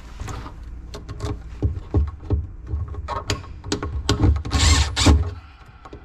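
Clicks, knocks and handling thumps as an electrical outlet is pushed into its wall box, with a Milwaukee cordless driver running briefly a little over four seconds in to drive the outlet's mounting screw.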